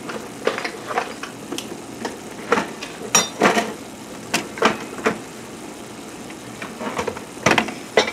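Cans of beans being opened with a can opener: a string of irregular sharp clicks and metallic knocks. Under them, the steady faint sizzle of ground beef frying in a pot.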